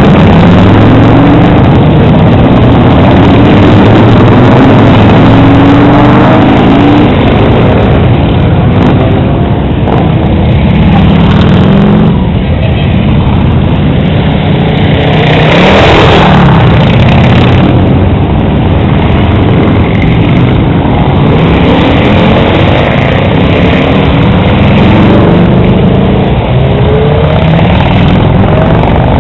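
Several motorcycle engines running and revving as a procession of bikes rolls past, pitches rising and falling, with a louder burst about halfway through.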